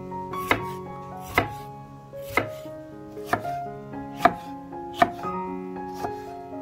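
A knife chopping on a cutting board in slow, even strokes, about one a second, over background music.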